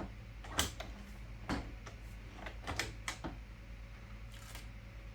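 A few light, sharp clicks and taps, with a softer scrape near the end, as small press parts and the sensor cable are handled.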